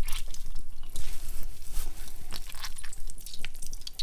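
Rosehip puree squeezed by hand through a fine mesh cloth: strained juice streaming and dripping into a saucepan of liquid in irregular splashes, with wet squelching from the cloth.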